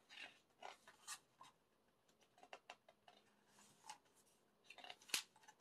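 Faint rustling and light ticks of paper as album pages and printed inserts are handled and turned, with one sharper tick near the end.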